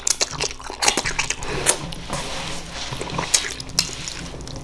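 Close-miked eating of ramen noodles: slurping and wet chewing, a rapid run of sharp clicks and smacks.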